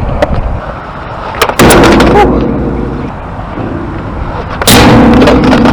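Skateboard ridden on concrete during nose slide attempts: a sharp clack about a second and a half in and another near the end, each followed by loud rumbling of the wheels rolling.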